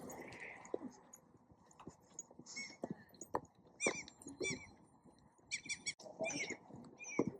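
Birds calling: runs of short, high chirps a few times a second, with faint knocks and rustling underneath.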